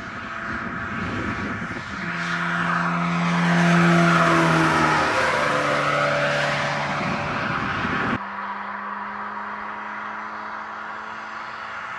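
SEAT Toledo driving past at speed. The engine and tyre noise build to their loudest about four seconds in, and the engine note drops as the car passes. The sound cuts off abruptly about eight seconds in, leaving a quieter, steady road hum.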